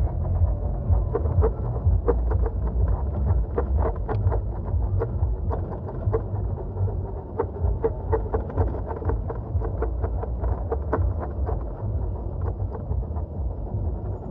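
Wind rumbling on the microphone during a bicycle ride, with many short, irregular clicks and rattles throughout.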